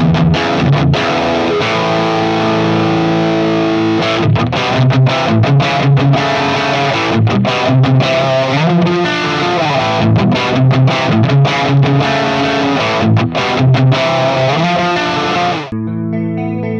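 Sterling by Music Man Valentine electric guitar played with a distorted tone, a run of riffs and chords. Near the end it cuts abruptly to a cleaner, thinner tone.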